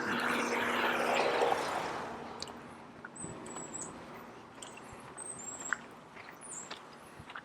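A passing motor vehicle, loudest about a second in and fading away within the first two seconds. After it come scattered footsteps on the trail and brief high bird chirps.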